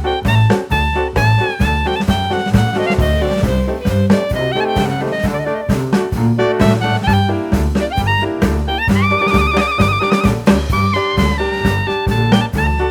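Upbeat jazz music with a walking bass, drum kit and brass or saxophone lead; a held, wavering horn note stands out about nine seconds in.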